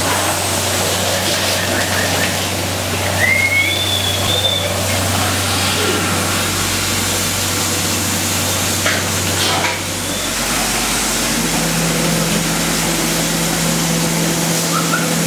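Water hissing and splashing out of a milking cluster's teat cups during a backflush rinse, over a steady machinery hum. The hum changes to a slightly higher steady tone about ten seconds in.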